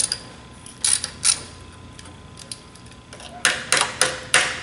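Socket ratchet wrench clicking as a bolt on a shot blaster's brush-seal bracket is retightened: two clicks about a second in, then a quicker run of about five near the end.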